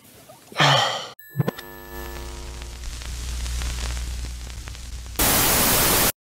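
A short vocal sound, then an electronic transition effect: a brief high beep and stacked glitchy tones over a low hum, ending in about a second of loud TV static hiss that cuts off suddenly.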